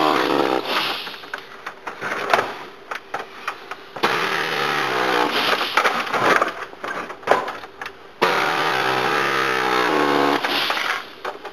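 A motor-driven cutting tool running in three long runs, its pitch dipping and wavering as it bites into the Xbox 360's case to take the back cover off.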